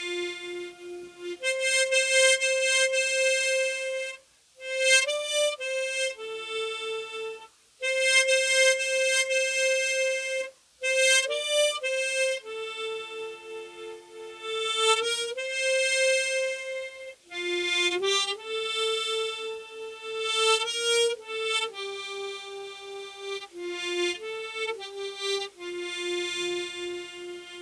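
Unaccompanied solo harmonica playing a slow melody of long held notes, one note at a time, with brief silent breaks about four and a half, seven and a half and ten and a half seconds in.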